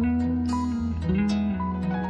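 Background music: acoustic guitar, plucked and strummed notes over a steady bass.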